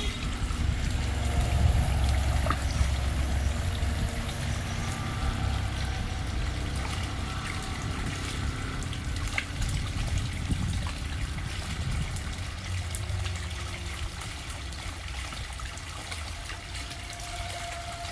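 Water gushing steadily from the end of a flexible discharge hose and splashing into a pond, with a low rumble under the splash.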